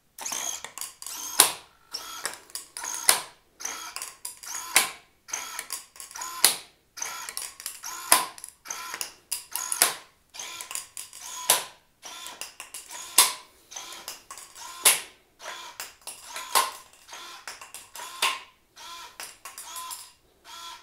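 Hobby servo sweeping full left and full right over and over, driven by a servo tester in wiper mode, turning a tube-feeder drum. Each sweep whirs and ends in a sharp knock about every 1.7 seconds as a tube is pushed through and clatters onto the concrete floor.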